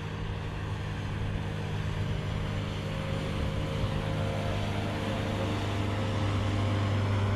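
Speedboat engines running at speed, a steady drone growing louder as the boats come up and pass.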